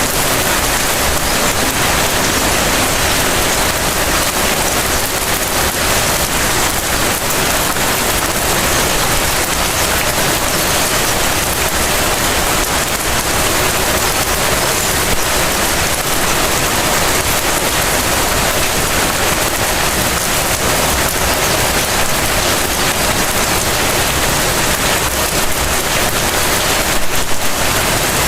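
Light rain falling steadily, an even hiss of drops on surfaces, with a brief slightly louder patch near the end.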